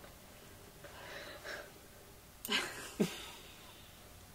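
Soft, breathy stifled laughter: a faint exhale about a second in, then a sharper laughing breath at about two and a half seconds and a short catch in the voice half a second later.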